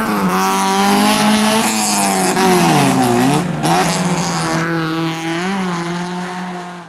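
Rallycross race cars running at full throttle, several engine notes overlapping. Their revs drop about halfway through, as when lifting off or braking for a corner, then climb again. Near the end it fades out quickly.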